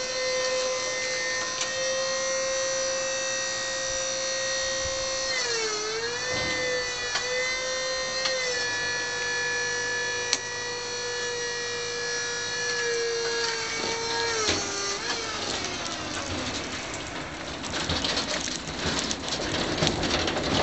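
Whine of a 1967 Lansing Bagnall FRER3 battery-electric reach truck's motor, high and steady, dipping in pitch a few times, then winding down about fifteen seconds in. After that come clattering and rattling as the truck moves with the loaded pallet.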